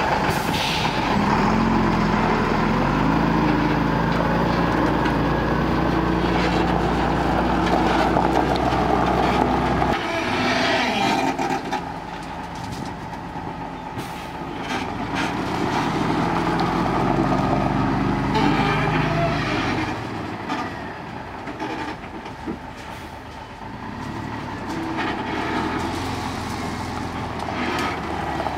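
Diesel engine of a dump truck with a trailer running under load as it pulls away. It revs up twice: about two seconds in and again a little past the middle. It eases off in between and near the end.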